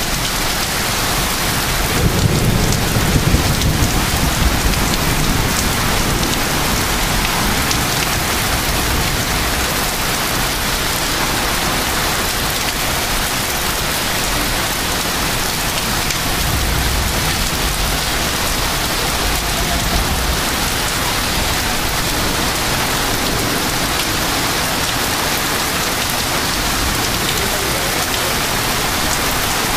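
Heavy thunderstorm rain pouring down steadily in wind, with a low rumble about two seconds in and again around sixteen seconds in.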